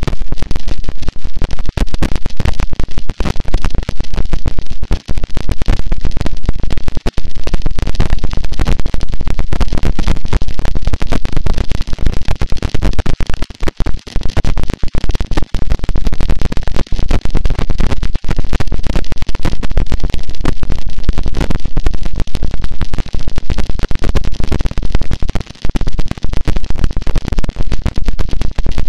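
Harsh noise wall: a loud, dense wall of distorted static that fills the whole range from deep rumble to hiss and churns without change, broken only by brief momentary dropouts.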